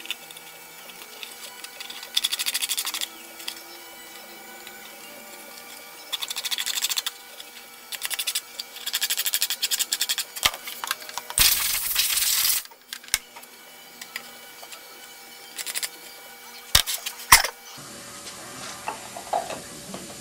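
Edge of a clear plastic aircraft nav-light lens being worked by hand with a small tool, trimming it to fit: about six short bursts of scraping, each about a second long, then a few sharp clicks near the end.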